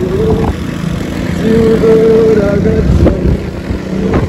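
Motorcycle engine running under way, its note stepping up in pitch about a second and a half in.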